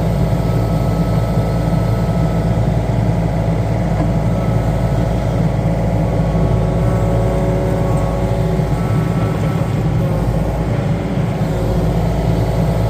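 Yanmar ViO35 mini excavator's diesel engine running steadily while the machine digs, an even low hum with no break.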